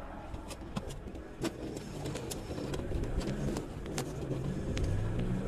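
Car driving slowly, a low rumble of engine and tyres with scattered sharp clicks and crackles, growing gradually louder.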